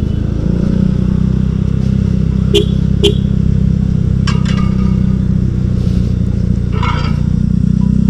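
Motorcycle engine running through an aftermarket TZM Project exhaust while the bike is ridden at low speed: a steady low exhaust note whose pitch shifts slightly about half a second in. Two short knocks sound about two and a half and three seconds in.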